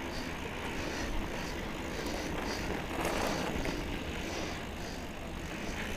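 A 2017 Trek Remedy 7 mountain bike riding a dirt trail: wind rushing over the camera's microphone and the tyres rumbling, with a faint high hiss repeating about twice a second.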